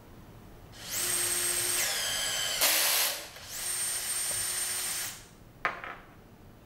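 Cordless brushless rivet nut tool's motor running with a high steady whine, which falls in pitch as it loads up and ends in a short harsh burst. It then runs again for about a second and a half as it automatically reverses, as when an M8 rivet nut is spun onto the mandrel and back off. A sharp click comes near the end.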